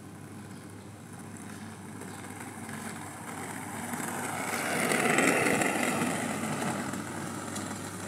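Tiny wheels of a shoe-sized micro bike rolling on asphalt, a rushing tyre noise that grows louder as the bike approaches, is loudest about five seconds in as it passes close, then fades.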